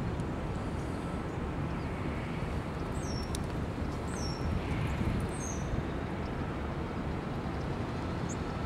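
Steady outdoor background noise with a low rumble, and a few short, high bird chirps about three to five seconds in.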